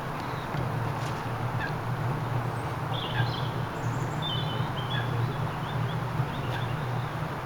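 Birds chirping in short, irregular calls, clustered in the middle, over a steady low rumble.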